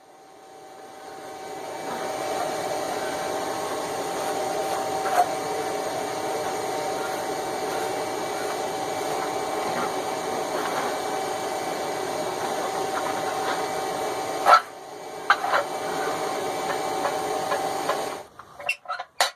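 A small electric motor running steadily with a constant hum. It cuts out briefly about fourteen seconds in, then runs again until shortly before the end.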